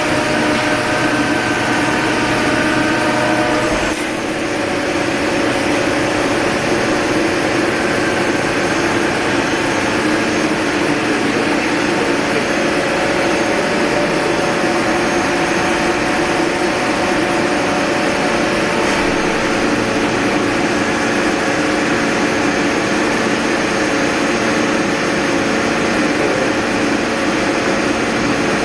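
CNC lathe running, a steady loud machine noise with several held tones. About four seconds in there is a click, and the tones change to a different set.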